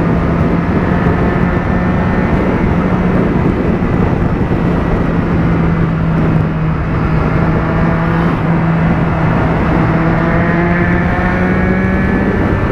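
Motorcycle engine running at a steady highway cruise, with road and wind noise over the microphone; its note edges up slightly in the last few seconds.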